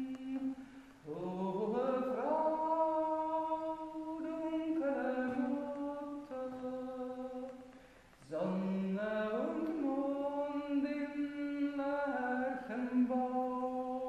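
A woman singing a Marian hymn solo and unaccompanied, in long held notes. She breaks for breath about a second in and again about eight seconds in, and each new phrase slides upward onto its first held note.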